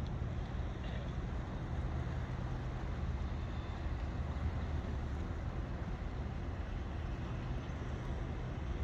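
Steady outdoor background rumble, low and even, like distant city traffic, with no distinct events.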